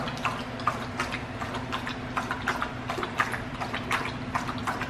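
A dog lapping water from a stainless steel bowl: a quick, even run of wet laps, about four a second.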